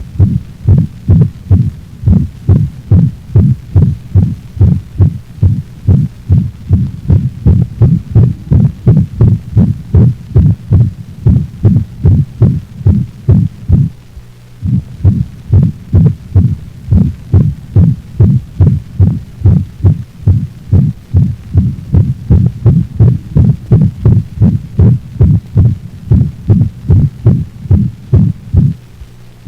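Dog heart sounds from an auscultation recording: regular low beats about two a second over a steady low hum, with a short dropout about halfway through.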